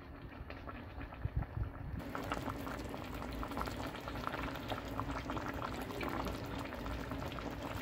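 A pan of hilsa steaks and Malabar spinach in thin broth bubbling on the stove, a steady fine crackle of bubbles that comes in suddenly about two seconds in.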